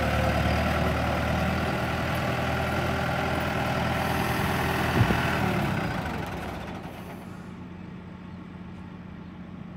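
Kubota tractor's diesel engine idling steadily. About five seconds in there is a single knock, and over the next two seconds the engine sound drops to a fainter, steady hum.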